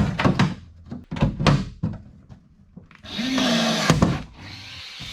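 Workshop tool work: several sharp knocks, then a power tool runs for about a second, ending with a click.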